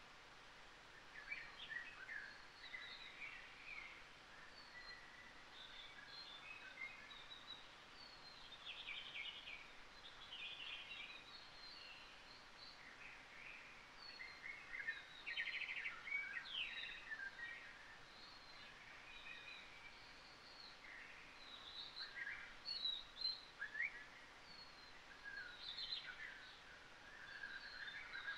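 Faint birdsong from a nature-sounds backing track: many small birds chirping in short high calls and trills over a soft steady hiss.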